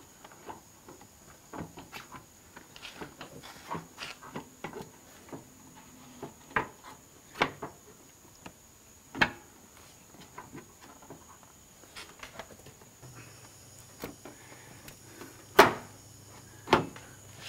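Plastic clicks and knocks as a Honda S2000 headlight assembly is worked by hand into its mounting in the car's front end: scattered light taps, with two louder knocks near the end.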